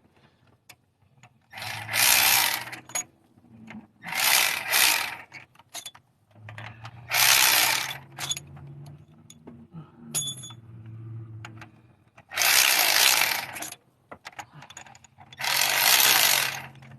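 Hand-tool work on a car engine: five separate rasping bursts of about a second each, the kind a ratchet makes when it is worked on a bolt, with scattered clicks between them.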